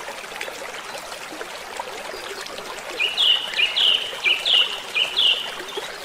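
A bird calls four times in quick succession from about three seconds in, each call a short two-part note, over a steady hiss and scattered small chirps.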